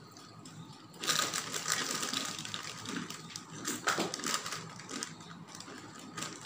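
Plastic foil snack packets crinkling and crackling as they are handled and pulled open, starting about a second in, with one sharper crackle a little past the middle.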